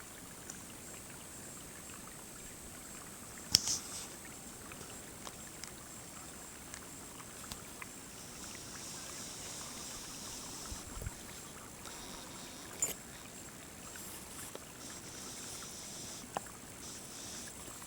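Quiet outdoor natural ambience: a faint steady hiss with scattered small clicks, and short high-pitched chirps about three and a half seconds in and again near thirteen seconds.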